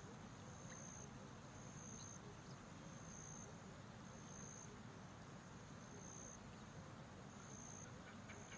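Faint rainforest ambience: an insect calls in short high-pitched pulses, about one a second, over a low steady background hiss.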